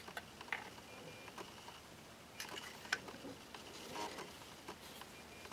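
Faint clicks and rubbing of a plastic Transformers Jetfire figure being handled, as its parts are pushed into place. There are a few scattered soft clicks, a sharper one about three seconds in and a short run of small clicks and rustling around four seconds.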